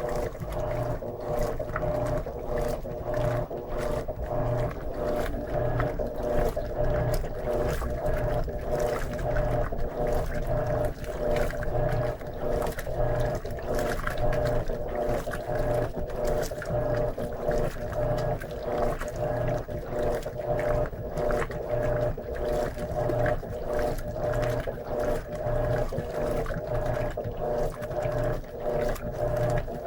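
Electrolux LM13Q top-load washing machine in its initial agitation: the motor hums while the agitator swings back and forth about once a second, churning water and clothes in a steady rhythm.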